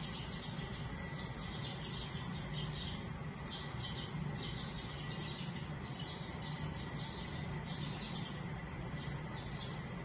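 House sparrow chirping: short, high chirps repeated irregularly, sometimes in quick runs, over a steady low background hum.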